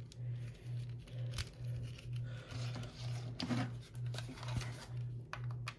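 Handling noise from a power supply and its cord being picked up and tried: scattered rustles, light clicks and knocks. Under them runs a low hum that pulses about twice a second.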